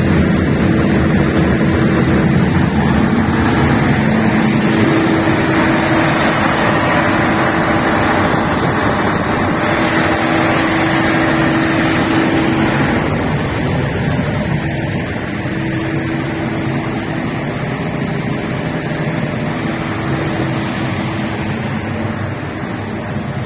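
A 500 kVA diesel generator running at a steady speed, its engine noise carrying a steady hum. The sound eases a little about halfway through.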